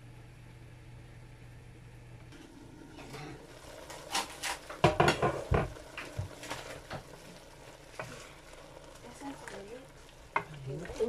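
Sliced mushrooms and onions sizzling in a frying pan, stirred and scraped with a wooden spoon, with several sharp knocks and clatters against the pan about halfway through, the loudest sounds. A low steady hum stops after about two seconds.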